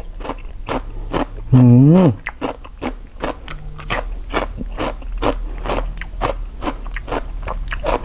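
Close-up crunchy chewing of pickled cabbage: a steady run of crisp crunches. About a second and a half in, a loud hummed "mmm" of enjoyment rises and falls in pitch.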